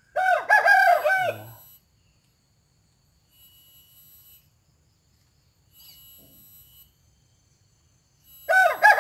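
A rooster crowing twice: a loud crow of about a second and a half at the start, and another beginning near the end.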